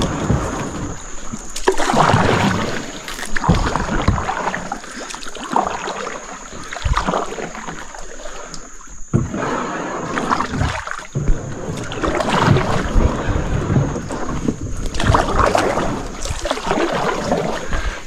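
Kayak paddling: water splashing and sloshing in irregular strokes, one every second or two.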